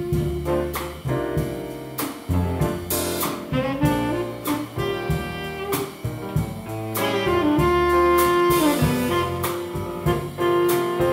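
Jazz quartet playing, with a saxophone carrying held melody notes over piano, double bass and drum kit, and drum and cymbal strokes throughout.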